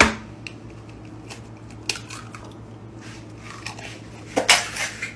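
Eggs being cracked against a bowl and a fork clinking in a bowl of egg yolks: scattered taps and clicks, with a louder cluster near the end, over a low steady hum.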